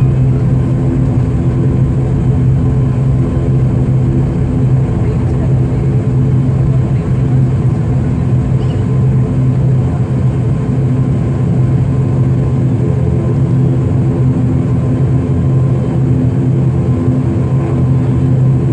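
Cabin drone of an ATR 72-500's turboprop engines and propellers while taxiing: a steady low hum with one strong tone and its overtones, unchanging throughout.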